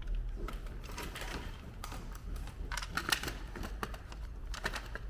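Irregular plastic clicks and knocks from handling a Dyson cordless vacuum and pushing a charger plug into it.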